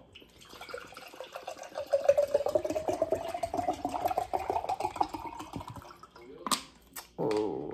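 Water poured from a plastic bottle into a frosted glass beer mug, the gurgle rising steadily in pitch as the mug fills. The pour stops near the end, followed by two sharp clicks.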